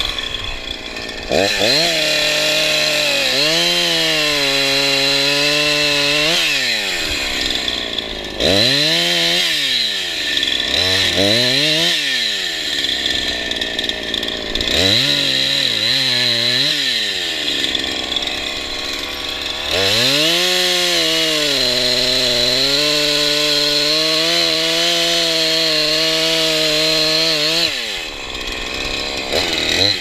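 Husqvarna 346XP two-stroke chainsaw revving up and down in short bursts, with two longer spells at a steady, lower engine pitch while it cuts through wood.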